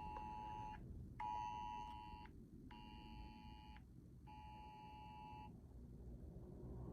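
Emergency Alert System-style two-tone attention signal sounding as four separate beeps, each about a second long with short gaps, stopping about five and a half seconds in.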